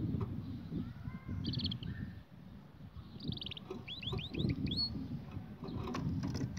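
Small songbird chirping: a few short high notes, then a quick trill and a run of about five quick whistled notes, over a low rumble. A few sharp knocks come near the end.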